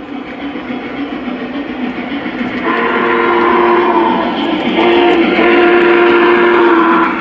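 Lionel Union Pacific 844 model steam locomotive's onboard sound system blowing its steam whistle: two long chime blasts, starting about two and a half seconds in and cutting off near the end, over the steady running sound of the train.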